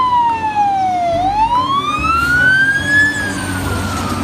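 Fire engine siren in a slow wail: the pitch falls, turns about a second in and rises until about three seconds, then starts falling again. Engine noise runs underneath.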